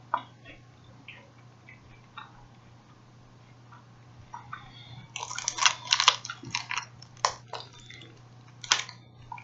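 Close-up mouth sounds of biting and chewing a Kit Kat wafer bar: a few faint clicks, then from about five seconds in a run of crisp crunches and wet smacking clicks.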